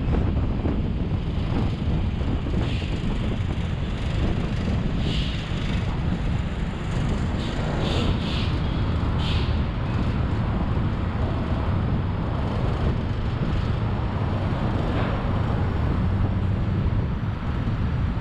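Steady road traffic noise with wind buffeting the microphone, and a few brief hisses during the first half.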